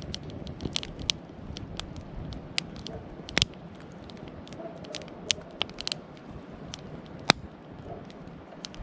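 Wood campfire crackling, with irregular sharp pops; the loudest come about three and a half seconds in and about seven seconds in.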